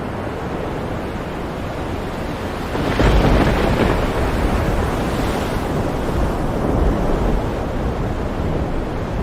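Stormy sea: waves surging and wind blowing in a dense, continuous wash of noise, with a louder, deeper surge about three seconds in.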